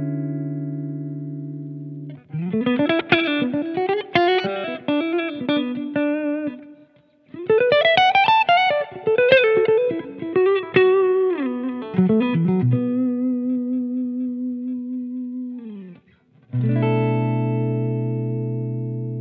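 Umeda UST QM24 electric guitar played clean on its neck humbucker, through a Strymon Iridium amp simulator with Strymon Flint reverb. A chord rings and fades at first, then come two fast single-note lead runs with slides. A long held note slides down near the end, and a last chord is struck and left ringing.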